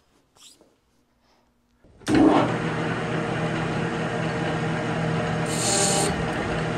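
Metal lathe starting up suddenly about two seconds in and running steadily with a low hum. It spins a chrome-plated steel rod cutoff for a facing cut, and a brief high hiss comes near the end.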